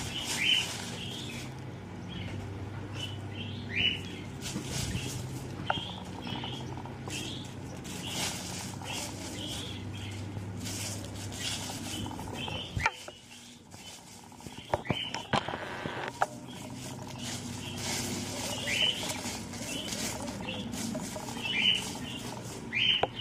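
Small birds chirping: short rising chirps repeating every second or so over a low steady hum, with a few sharp clicks near the middle.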